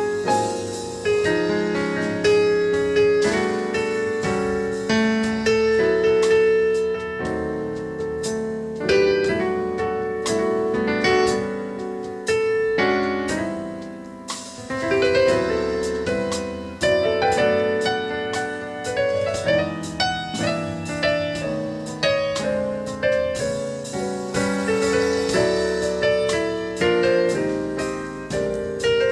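Piano music: a keyboard playing chords and a melody, each note struck and then fading.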